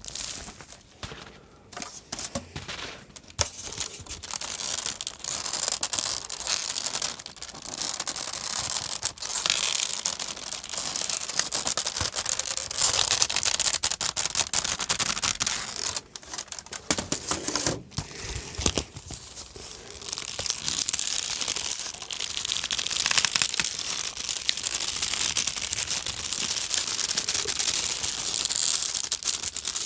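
Baskets being flexed and strained to make Foley creaking and tension sounds: a dense run of crackling creaks, with a few short pauses.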